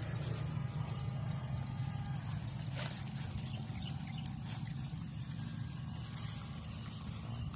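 Electric fish shocker's inverter giving a steady, low, rapidly pulsing buzz while its probe is in the water.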